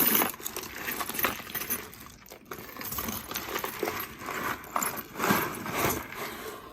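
A pile of costume jewelry clattering and jingling as it is dumped out and shifted: necklaces, chains and lucite bangles knocking together in many quick, irregular clicks.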